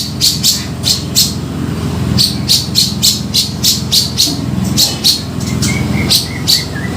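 Grey-cheeked bulbul (cucak jenggot) calling in a rapid series of short, harsh, high notes, about three to four a second, with a brief pause about two seconds in and a few short whistled notes near the end. A steady low drone runs underneath.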